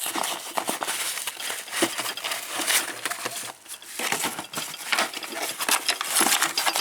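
Hand tools and their plastic cases or wrappers being handled and moved about in a toolbox drawer: continuous crinkling and rustling with small clicks and clinks, pausing briefly a little past the middle.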